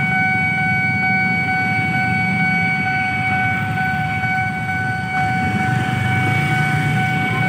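Railway level-crossing warning alarm sounding one steady high tone without a break, warning of an approaching train, over the low rumble of motorcycle engines idling at the closed crossing.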